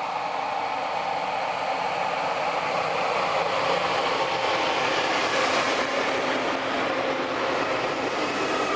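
PKP Intercity EU44 Husarz electric locomotive rolling slowly past with its coaches: a steady running noise of the locomotive and wheels, growing a little louder as the locomotive comes alongside.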